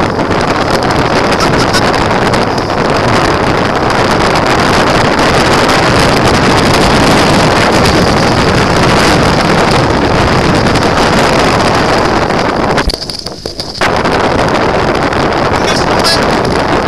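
Loud, steady rush of wind buffeting the microphone and wheels rolling over a wet track, from a dryland mushing rig moving at speed behind a running dog team. The noise drops out briefly, for under a second, about thirteen seconds in.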